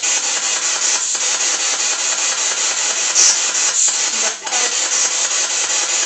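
Loud, steady radio static hissing from a handheld spirit box, the ghost-hunting radio scanner, with a few brief dips as it sweeps.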